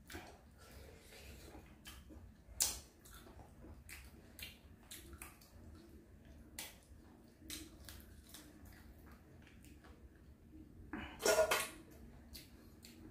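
Close-mouthed eating sounds: scattered wet smacks and clicks of lips and fingers while boiled fish meat is picked apart by hand and chewed, with a sharper smack about two and a half seconds in and a short louder run of mouth noise near the end.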